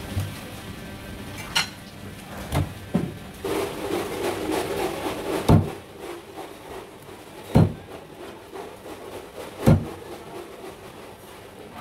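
Heavy cleaver chopping through stingray wing and striking a thick wooden chopping block: a run of sharp chops, the three loudest about two seconds apart in the second half.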